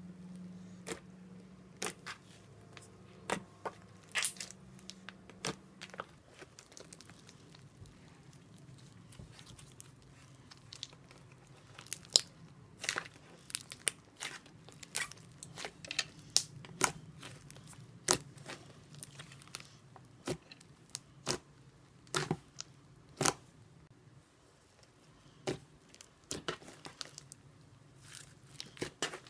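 Butter slime being squeezed, stretched and poked by hand, making irregular sticky clicks and small pops.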